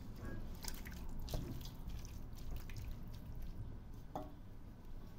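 A spoon stirring a wet stew of lamb and kenger stems in a stainless steel pot: wet squelching with a few sharp clicks of the spoon against the pot.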